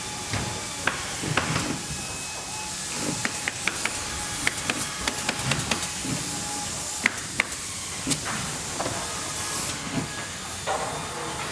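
Factory ambience: a steady hiss of machinery with irregular sharp metallic clanks and taps scattered through it, and faint thin tones that come and go.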